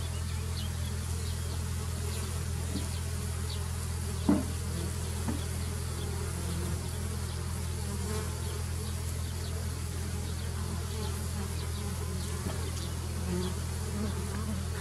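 A honeybee swarm humming, a steady low drone of many wings. One sudden short louder sound stands out about four seconds in.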